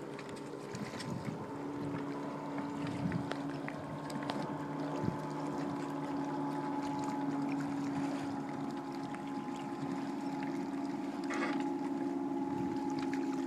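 Motorboat engine running steadily, a held hum with a few light knocks over it.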